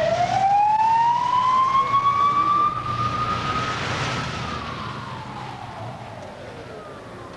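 Ambulance siren in wail mode: one slow rising and then falling tone that fades away as the vehicle moves off, over a low road rumble.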